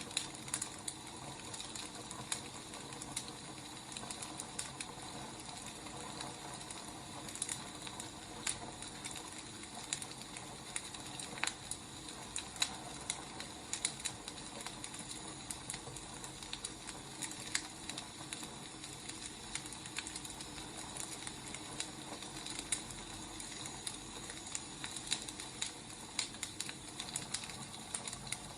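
Wood fire crackling: irregular sharp pops and snaps over a steady soft hiss.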